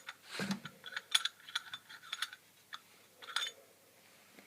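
Sections of a heavy herb grinder being screwed together: a run of small irregular clicks and scrapes from the threads, which stops after about three and a half seconds.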